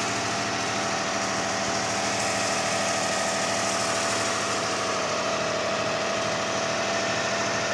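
2005 Kia Sedona's 3.5-litre V6 idling steadily just after a cold start, running smooth with no ticking or knocking. It has a new timing belt, tensioners, idler and water pump.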